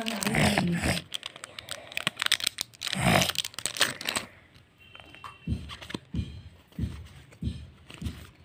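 Foil booster-pack wrapper crinkling and tearing as it is opened, loudest about three seconds in. It is followed by quieter handling with a row of soft thumps.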